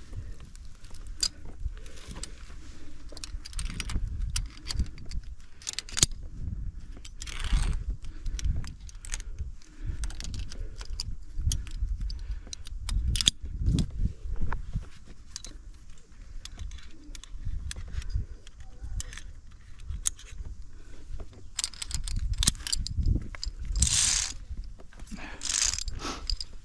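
Via ferrata lanyard carabiners clicking and clinking against the steel cable and each other, over scuffs and knocks of the climber against the rock. A few short hissing rushes come through, two of them near the end.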